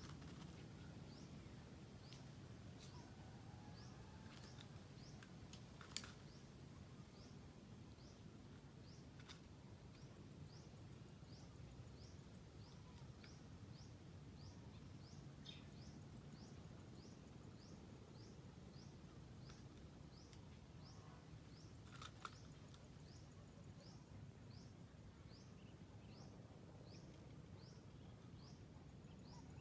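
Faint outdoor ambience with a small bird giving a high, short chirp over and over at an even pace, about one and a half a second, and a couple of soft clicks.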